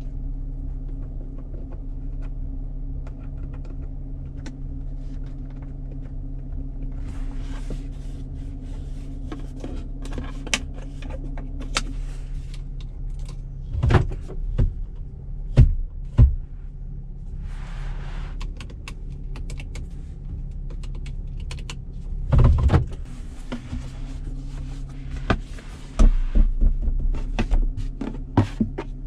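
Cabin sound of a 2019 Chevrolet Colorado 4WD pickup with its 3.6-litre V6 petrol engine, driving slowly over rough off-road ground: a steady low engine hum with frequent clicks and rattles, several heavy thumps and clunks as the truck works over bumps, the loudest around the middle and near the end, and a few short bursts of hiss.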